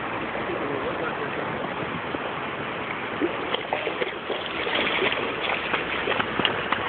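Shallow river water running over rocks, a steady rushing. From about halfway through, scattered short knocks and splashes sound on top of it.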